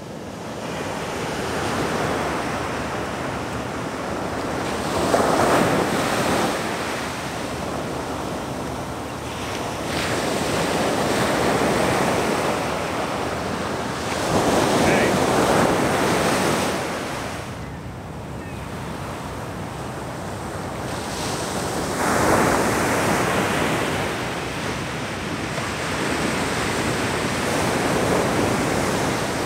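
Ocean surf breaking on the beach, the rush of the waves swelling and fading in slow surges every five or six seconds, with wind on the microphone.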